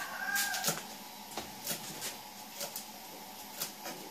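Knife chopping fresh greens on a thick wooden chopping block: sharp, irregular knocks, roughly two a second. A rooster's crow trails off within the first second.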